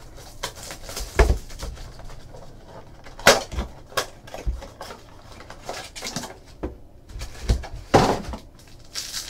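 Handling noise from opening a trading-card blaster box: cellophane wrapper crinkling, the cardboard box being opened, and card packs set down on a tabletop. Several sharp knocks and taps are spread through it.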